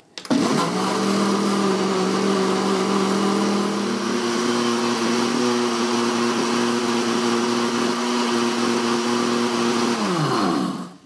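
Ninja countertop blender blending eggs and butter mayo into a liquid batter. The motor spins up just after the start, holds a steady whine, and winds down and stops near the end.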